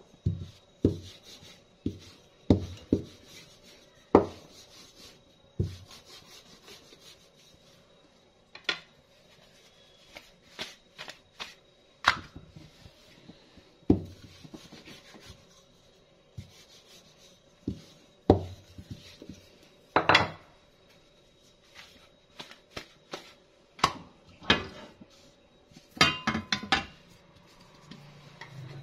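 A small rolling pin rolling tortilla dough thin on a kitchen countertop slab. Irregular sharp knocks come as the pin is set down and moved, with soft rubbing between them and a quick run of knocks near the end.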